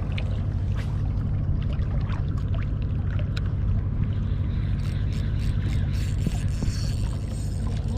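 Steady low rumble of wind buffeting the microphone, with the sea washing against the rocky shore and scattered faint clicks, more of them a few seconds in.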